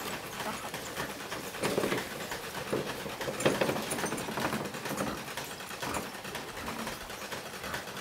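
Dog sounds: a few short cries about a second apart, over a steady hiss.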